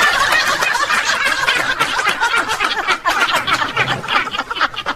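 A group of people laughing and snickering together, many voices overlapping without a break.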